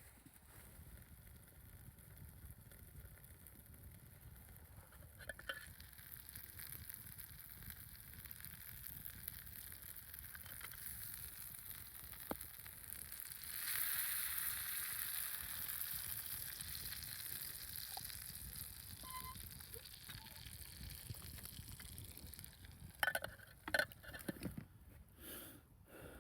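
Sizzling hiss over a campfire, swelling for several seconds in the middle, with a few sharp crackles and snaps near the end.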